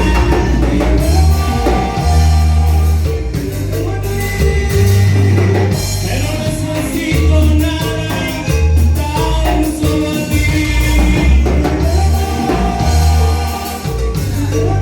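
A band playing Latin-style music with a singer, a heavy pulsing bass and a drum kit.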